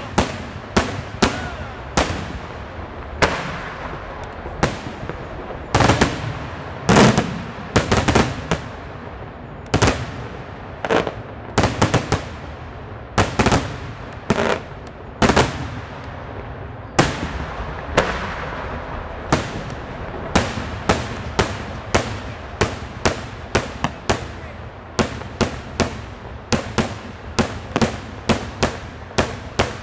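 Daytime fireworks display: aerial shells bursting in a long series of loud bangs. The bangs come irregularly, with the loudest clusters in the first half, then settle into a steady run of about two a second from about twenty seconds in.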